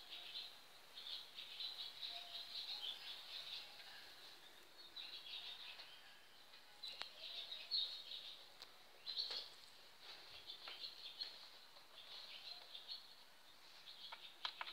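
Faint, high-pitched chirping in repeated irregular bursts, with a few sharp clicks partway through and near the end.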